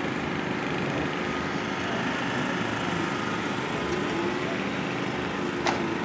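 Vauxhall Firenza 'Baby Bertha' race car's V8 engine idling steadily. A single sharp click near the end.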